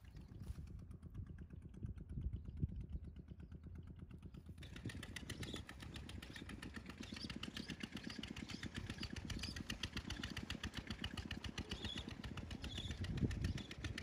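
A small engine running steadily with a fast, even beat. About four and a half seconds in, the sound turns brighter and harsher.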